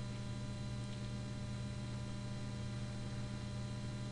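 Steady electrical mains hum with a faint hiss behind it, a constant drone with several fixed higher tones above it: electrical noise picked up in the recording.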